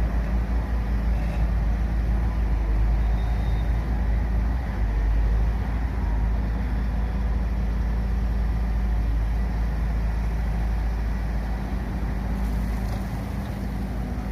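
Heavy road-construction machinery or a large vehicle engine running steadily, a continuous low rumble that eases slightly near the end.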